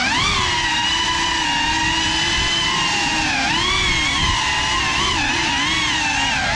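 GEPRC FPV quadcopter's brushless motors whining, the pitch rising and falling as the throttle changes in flight.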